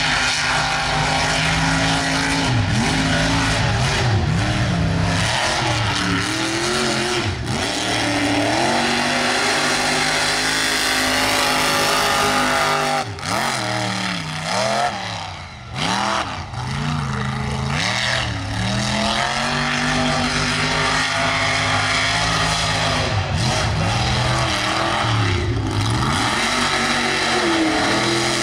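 Mud racing truck engines revving hard, the pitch climbing and falling again and again as the trucks race through the mud. The sound dips briefly about halfway through.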